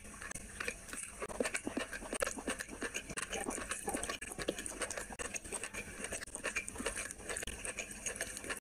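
Close-up eating sounds: fingers squishing and mixing rice with curry on a plate, with wet chewing and lip smacks, a steady run of many small wet clicks.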